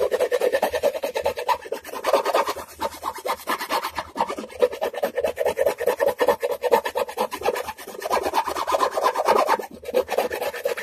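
A hand tool rasping back and forth in fast, steady strokes against the painted wooden edge of an electric guitar body, scraping the paint off and shaping the square edge round. There is one short pause near the end.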